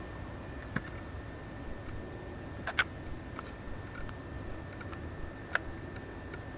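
Three short sharp clicks, about a second in, near three seconds and near five and a half seconds, over a steady low background hiss with a faint thin whine.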